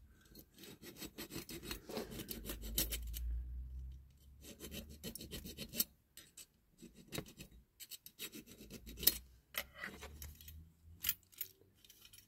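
A small hand file rasping against diecast metal in short, uneven strokes, with brief pauses about four and six seconds in.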